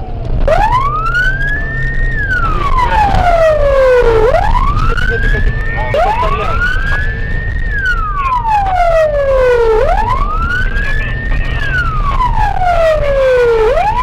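Police siren on its wail setting: a loud tone that rises over about a second and a half, then falls over about two seconds, repeating about every four seconds, over the low rumble of a car's engine and road noise.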